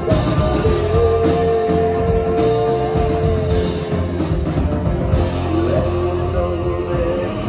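Live band playing a song, with drum kit hits and a banjo, and a long held note starting about a second in and lasting a couple of seconds.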